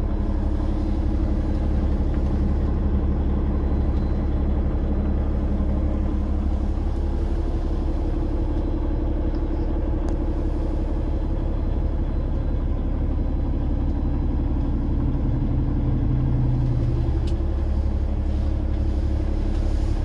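Peterbilt 389 semi truck's diesel engine idling steadily, heard from inside the cab as a low, even rumble and hum.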